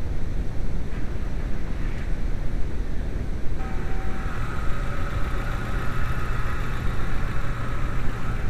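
VW New Beetle's 2.0L AEG four-cylinder engine idling unevenly, a sign of the misfire on cylinder 4. A steady whine joins it about three and a half seconds in.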